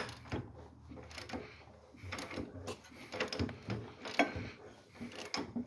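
1966 Volkswagen Beetle's 1300 air-cooled flat-four being turned over slowly by hand, clacking irregularly inside the engine. The engine caught while being cranked, and the owner suspects something is lodged in a cylinder.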